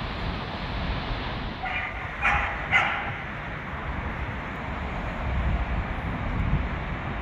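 A dog barks three times in quick succession about two seconds in, over a steady rumble of wind and road traffic.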